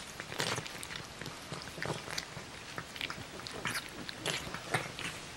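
Persian cat eating canned wet food from a stainless steel bowl, close up: irregular wet smacks and chewing.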